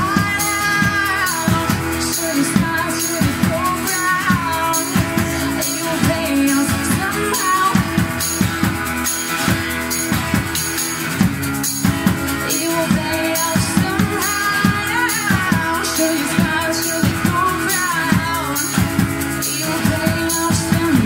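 Live band music: a drum kit keeping a steady beat under an acoustic guitar, with a woman singing over it.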